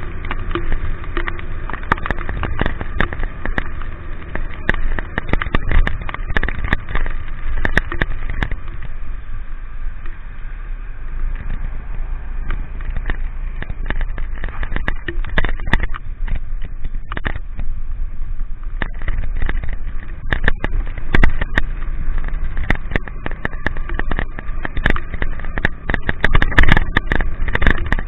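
A vehicle engine running steadily in the rain. Dense, irregular clicks and crackles of raindrops hit the camera and its microphone.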